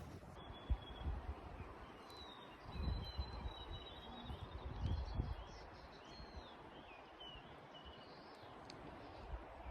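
Small birds chirping and whistling in short high calls, some sliding up or down in pitch. Low rumbling on the microphone swells about three and five seconds in.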